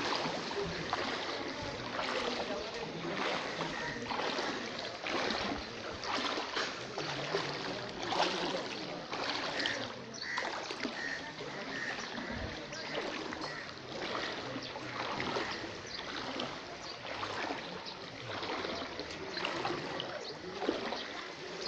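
Floodwater sloshing and splashing in regular surges, roughly once a second, as someone moves through it.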